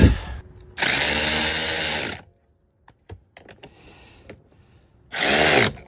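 Cordless drill with a socket bit running twice, driving a bolt into a motorcycle seat's backrest bracket: a steady run of about a second and a half, then a shorter burst near the end.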